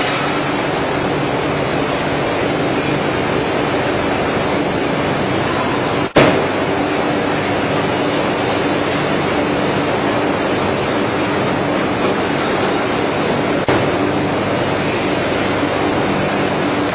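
Veneer splicer machine running: a steady mechanical rush with a low hum underneath. Two brief clicks break it, about six seconds in and again about thirteen and a half seconds in.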